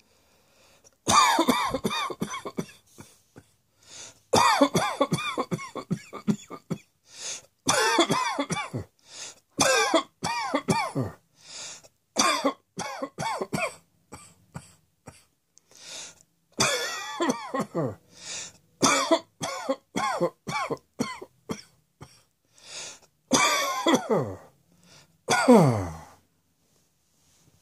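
A person coughing in repeated fits: about a dozen bouts, each a quick string of coughs, with short pauses between them. The last bout ends on a voiced sound falling in pitch.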